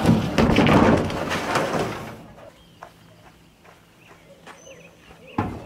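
Plastic kayak hull sliding and scraping across an aluminium trailer deck for about two seconds, then a lull with a few faint ticks, and a sudden loud knock or thud just before the end.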